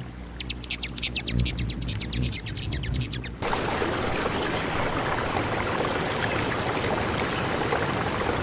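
A quick run of sharp clicks for about three seconds, then a sudden cut to a steady rush of running water.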